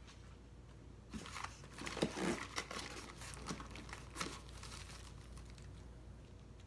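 Packaging being handled during the unboxing of a ceiling fan: an irregular run of crinkling and rustling, loudest about two seconds in, then fading out.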